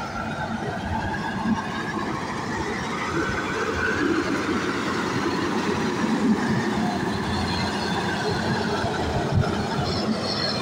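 Caterpillar 140K motor grader's diesel engine running under load as it moves past, its note rising and falling a little, with the scrape of loose gravel being pushed by its blade.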